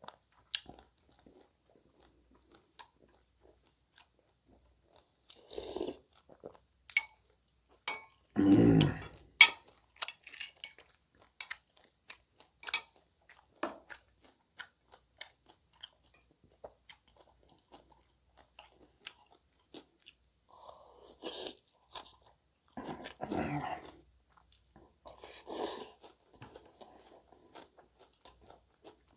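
Close-miked eating sounds: chewing and crunching in short bursts between scattered sharp clicks. The loudest, fullest mouthful comes about eight to nine seconds in.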